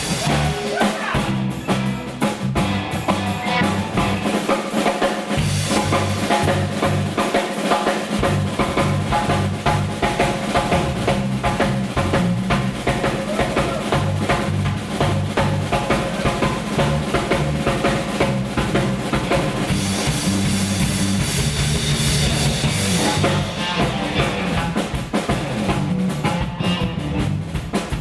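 Live blues band playing an instrumental break: drum kit keeping a steady beat under a stepping bass line and sustained instrument tones, with no singing.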